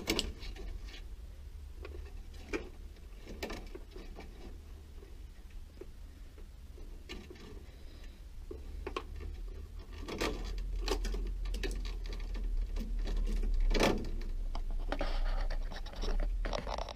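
Washer wire harness being handled and pushed into plastic wire guides by the control board: irregular light clicks, rustling and scraping of wires against plastic. A low rumble comes in about ten seconds in.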